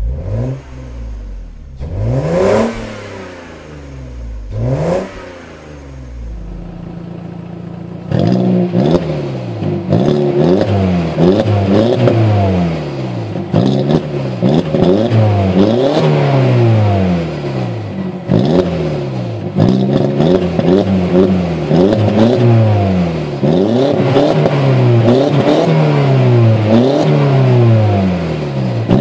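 Lexus IS300's 3.0-litre inline-six through an L-Tuned aftermarket exhaust, blipped twice to a sharp rev and settling to idle. About 8 s in, an Audi A4 B5's 1.8-litre turbo four-cylinder through a large-bore aftermarket exhaust is revved over and over, roughly once every two seconds.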